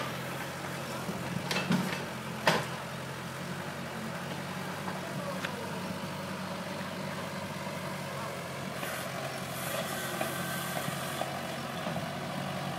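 Diesel engine of a Hyundai wheeled excavator running steadily at working speed, a low, even hum, with two sharp knocks in the first few seconds.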